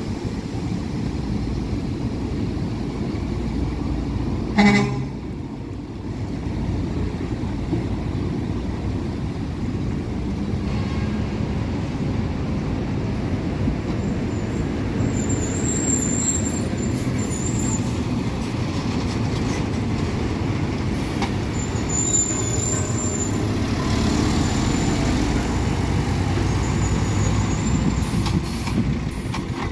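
Street traffic of passing diesel trucks: a steady low engine rumble, with one short horn toot about four and a half seconds in.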